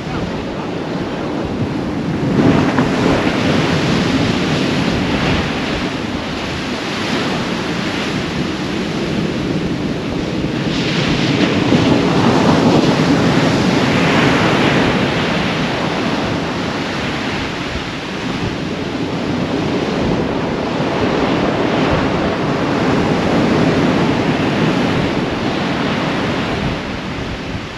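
Heavy North Sea surf breaking on a sand beach in a gale, each big swell crashing with a rush of water, with strong wind buffeting the microphone. The sound swells and eases in surges and is loudest about halfway through, as a large wave breaks.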